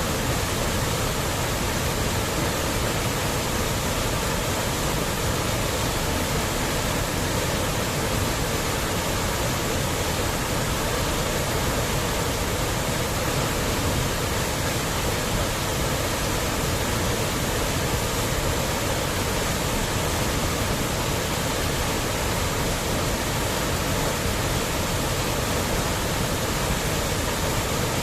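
Waterfall: water falling and splashing onto rocks and a pool in a steady, unbroken rush.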